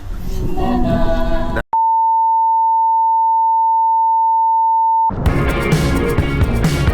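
Background music, cut off about one and a half seconds in by a single steady high-pitched beep that lasts about three and a half seconds, an edited-in censor bleep, before the music comes back.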